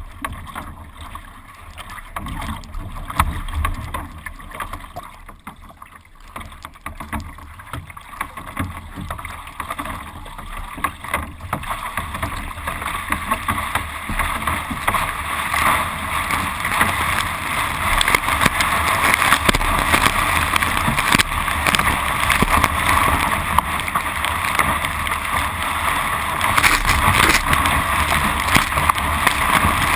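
Water rushing and splashing against the bow of a Carbonology Atom surf ski as it is paddled through small chop, with a low wind rumble. The water noise grows louder about halfway through as spray starts coming off the bow.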